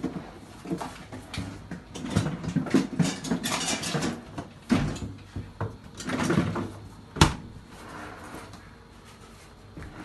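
Irregular knocks, clatter and rubbing from hands working on a refrigerator cabinet at close range, with one sharp knock about seven seconds in. A faint steady low hum runs underneath.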